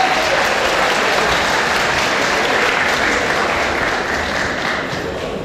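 Audience applauding, dense clapping that dies down near the end.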